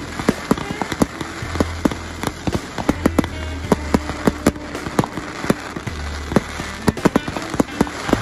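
A fireworks display: aerial shells going off in a fast, uneven series of bangs and crackling pops, several a second.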